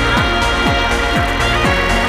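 Electronic dance music with a steady kick drum about twice a second under sustained synth chords.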